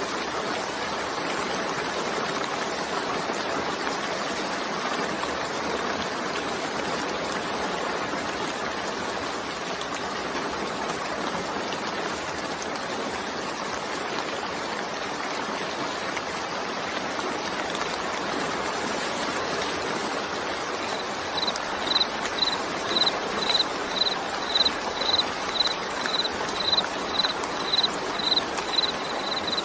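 Steady rain falling, an even hiss with no breaks. About two-thirds of the way in, an insect starts chirping in a high, regular rhythm, roughly twice a second.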